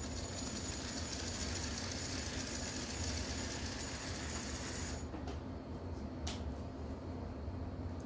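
Bachmann HO scale model diesel locomotive running slowly on its track, its small electric motor and wheels giving a steady high whine and hiss, after a short break-in run following decades in its box. The whine stops abruptly about five seconds in, and a single sharp click follows about a second later.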